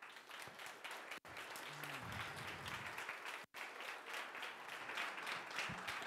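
Audience applauding: many hands clapping together, steady throughout.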